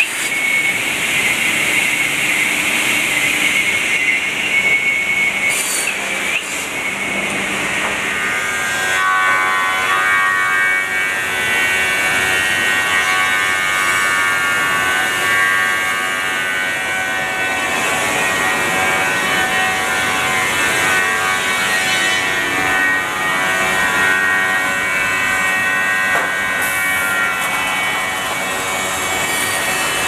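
Automated crosscut saw line running: steady machine noise with a whine of several tones, and a couple of short knocks, one about six seconds in and one near the end.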